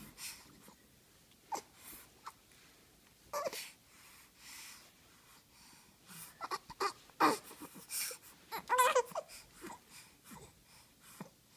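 Four-month-old baby cooing and making breathy huffs in short separate sounds with pauses between, with a brief wavering pitched coo near the end.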